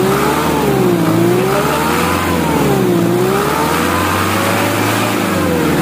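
Isuzu 4HL1 four-cylinder diesel engine revved up and down three times, its pitch rising and falling smoothly each time. It is being revved to check whether the low-power, no-RPM fault caused by a grounded wiring harness is cured.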